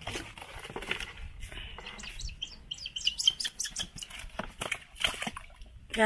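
Young bird flapping its wet wings and splashing in a plastic basin of water, a busy patter of small knocks and splashes, with a few short high chirps about halfway through.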